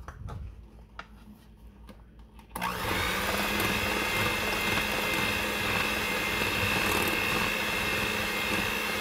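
Hamilton Beach electric hand mixer switched on about two and a half seconds in, then running steadily with a constant whine as its beaters whip butter and icing sugar into buttercream. A few faint clicks come before it starts.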